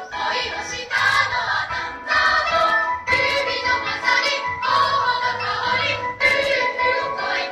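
A large girls' school choir singing a song together, phrase after phrase without a break.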